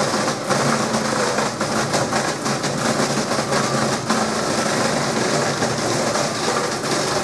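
FBC CIP 10 wood chipper with a 13 hp Honda petrol engine, chipping a long branch. Dense, rapid cracking and crunching of wood as the cutter bites it into chips, over the engine running under load.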